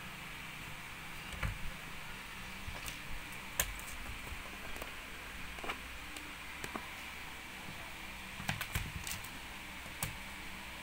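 Irregular light taps and clicks as kittens bat at a belt hanging against a cupboard door, some coming in quick little clusters, over a steady hiss.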